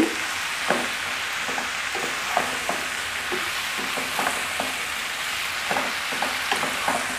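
Mixed vegetables sizzling in hot oil in a nonstick pan with no water added, stirred with a wooden spatula that gives short scrapes and taps against the pan now and then.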